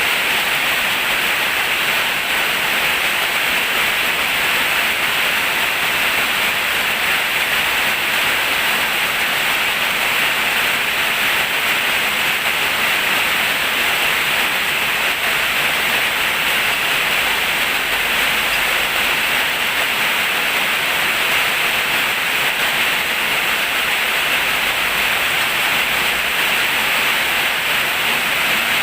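Heavy rain pouring steadily as a dense, even hiss.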